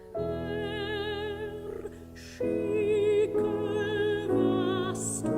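Classical soprano singing a German art song (lied), holding a series of long notes with a wide vibrato over a sustained accompaniment.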